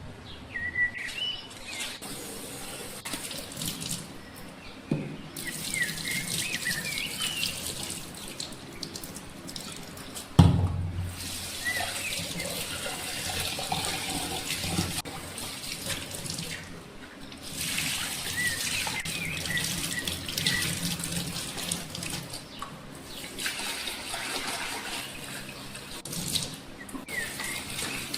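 Kitchen tap running into a sink, turned on and off several times, with one sharp thud about ten seconds in.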